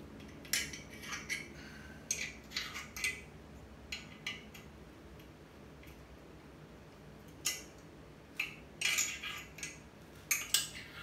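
A 13 mm wrench clinking and tapping against the steel studs of a VW engine crankcase, used to slide parts down the studs: clusters of light metal clicks, with a quiet gap in the middle.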